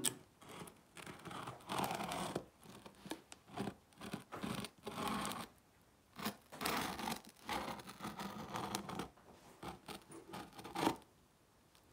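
An open scissor blade drawn along the packing-tape seam of a cardboard laptop box, slitting the tape in irregular scratchy strokes. There is a sharper, louder click near the end.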